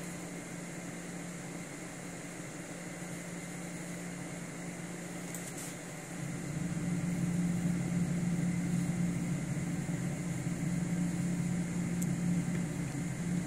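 Nursing mother cat purring, a steady low rumble that grows louder about six seconds in.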